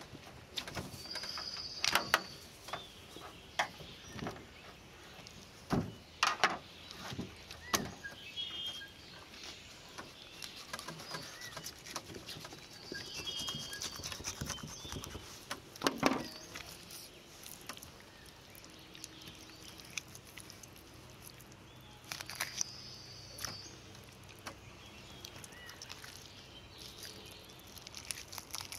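Knife and hands working a sturgeon's carcass on a metal tray as it is gutted: irregular sharp knocks and clicks, some louder than others. Short bird chirps sound a few times in the background.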